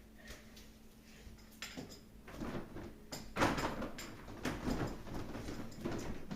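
A door being moved and shut, with a string of knocks and scraping noises, the loudest about halfway through.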